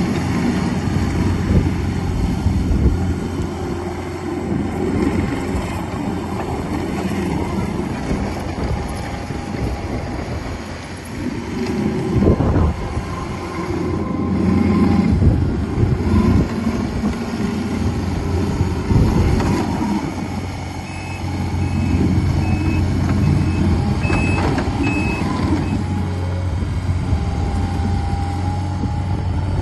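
2019 Takeuchi TL10V2 skid steer's diesel engine running, its level rising and falling as the machine works and moves. Past the middle, its backup alarm sounds a steady series of short high beeps.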